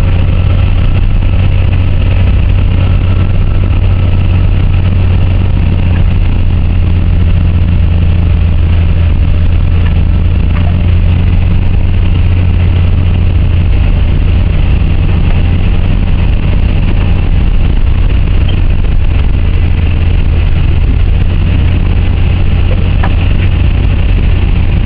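Car engine and tyre noise heard from inside the cabin while driving: a loud, steady low drone with road hiss, unchanging throughout.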